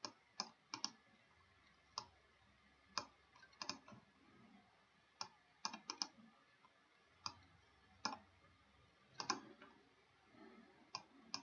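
Computer mouse button clicking: a dozen or so sharp, quiet clicks at irregular intervals, several in quick pairs, with quiet gaps between.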